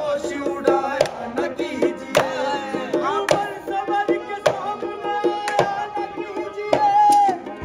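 Live Rajasthani folk song: a man singing over a harmonium, with a dholak (two-headed barrel drum) played by hand in a quick rhythm. Near the end the singer holds one long note.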